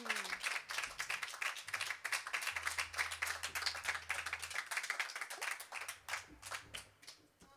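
Audience applauding: dense, irregular hand claps that thin out and die away near the end.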